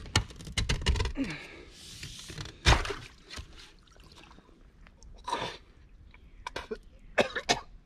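A shovel prying at a rusted car door under water: sharp metal knocks and crunching scrapes with some sloshing, the loudest knock about three seconds in and a few more near the end.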